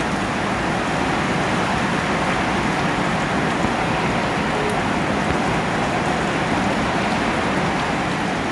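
Steady rain falling, an even hiss that holds without letting up.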